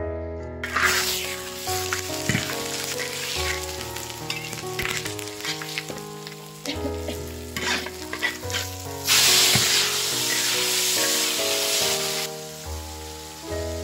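Food sizzling as it is stir-fried in an iron wok, with a metal spatula scraping and knocking against the pan. The sizzle starts under a second in, grows louder from about nine seconds in, then drops away about a second before the end. Soft background music plays throughout.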